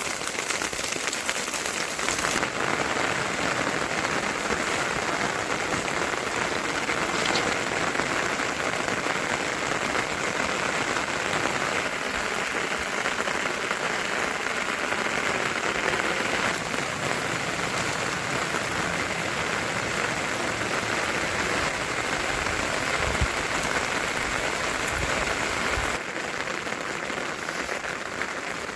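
Heavy rain falling steadily, a dense even patter that shifts slightly in character a couple of seconds in and again near the end.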